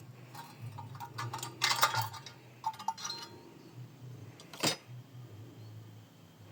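Metal pieces being handled: a run of light metallic clinks and taps for about three seconds, then a single sharp knock, over a faint low hum.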